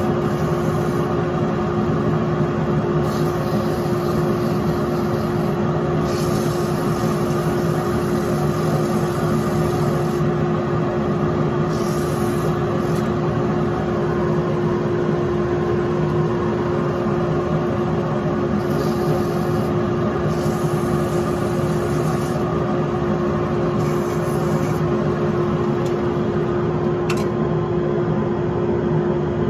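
Workshop machine motor running steadily: an even hum with a constant mid-pitched tone, with brief hissy patches coming and going and a single click near the end.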